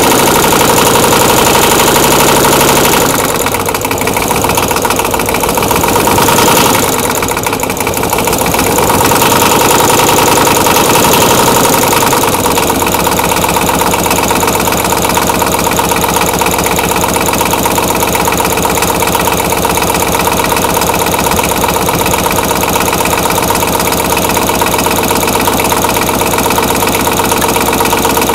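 Twin-cylinder diesel motorcycle engine running from cold, uneven and changing over the first twelve seconds or so, then settling into a steady idle.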